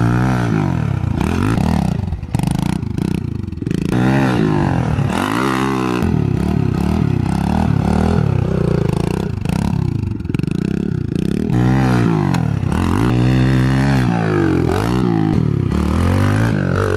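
Kawasaki KLX110 pit bike's small single-cylinder four-stroke engine revving up and down over and over as it is ridden and wheelied, its pitch rising and falling every second or two.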